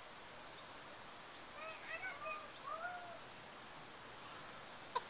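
Faint outdoor ambience with a few brief distant calls, some short and one longer gliding one, about halfway through, then a sharp knock at the very end.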